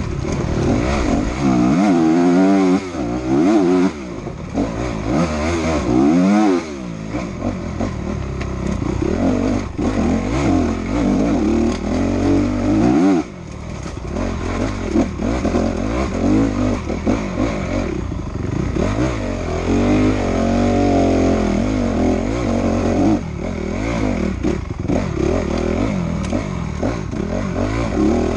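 Enduro dirt bike engine heard from on the bike, revving hard and falling away again and again as the rider works the throttle and gears along a rough trail. The throttle shuts off briefly a few times, most sharply about halfway through.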